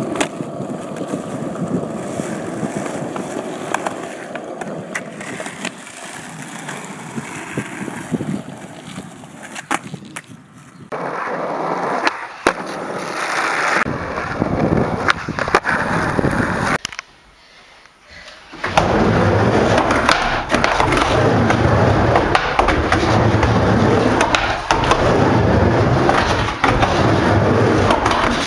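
Skateboard wheels rolling over rough asphalt, with the sharp snap of the tail popping and the clack of the board landing. From about 19 seconds in, louder and steadier wheel rumble on a wooden mini ramp, with more sharp knocks.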